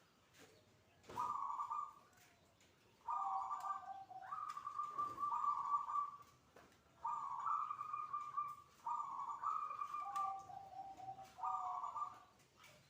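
Zebra dove (perkutut) cooing: a run of about seven coo phrases, each around a second long with short pauses between, several ending on a lower note.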